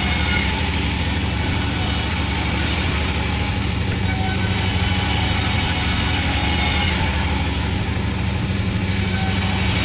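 Panda36 sawmill running steadily with an even low engine hum.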